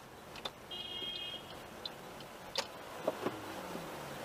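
A few sharp, irregular clicks and one short, high electronic beep inside a stopped car's cabin, over a faint low hum.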